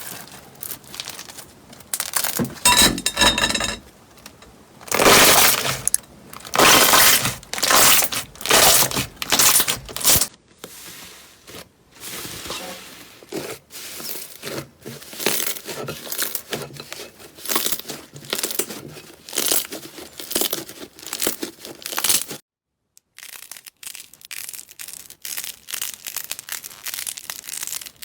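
Slime being pressed and squeezed by hand, giving repeated crackling, crunchy squishes, each lasting under a second. The sound stops briefly about 22 seconds in, then quieter crackling squishes carry on.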